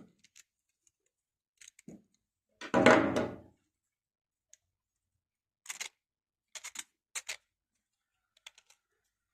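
3D-printed plastic iris box parts being handled and taken apart: scattered light plastic clicks and rattles, with one louder knock and clatter about three seconds in.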